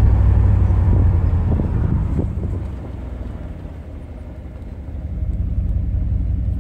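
Cab interior of a 1990 Chevrolet Silverado K2500 pickup with its 350 TBI V8: a low engine-and-road rumble that dies down over the first three seconds as the truck slows to a stop, stays quieter for a couple of seconds, then picks up again about five seconds in.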